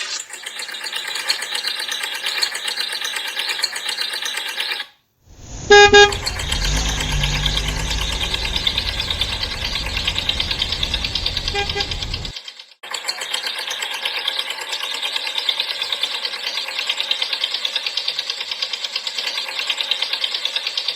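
Toy vehicle sounds: a steady whirring with a fast flutter, broken by two sudden cuts. About six seconds in comes a loud short horn toot, followed by a low engine-like rumble for several seconds with a second, fainter toot.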